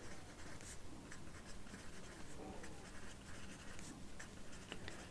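Pencil writing on paper: a faint, steady scratching with a few small taps.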